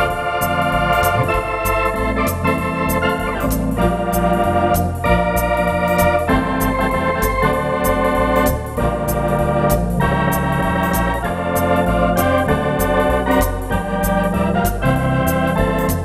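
Wersi Atlantis electronic organ playing swinging drawbar-organ registrations: sustained chords on the manuals over a pedal bass line that changes every beat or two, with high ticks keeping the beat about twice a second.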